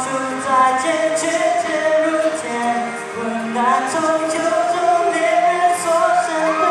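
Male solo singer singing a Mandarin song into a handheld microphone, with long held notes that waver in pitch.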